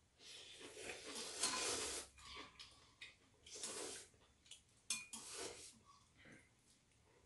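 Metal chopsticks clicking against bowls and a pot while ramyeon is eaten, with a few second-long slurps of noodles.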